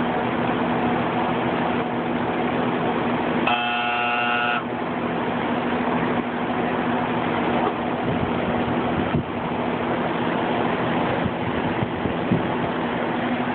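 Outdoor air-conditioner condenser fan running steadily, a rush of air with a low hum, while the compressor stays off: the compressor is broken and not starting, so the unit is much quieter than normal and barely warms the air it blows out. About four seconds in, a buzzing, horn-like tone sounds for about a second.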